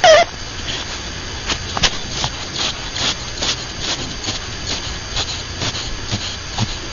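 Pet rabbit snoring: a steady run of soft, hissy breaths, about two or three a second. A brief, loud, wavering squeak comes at the very start.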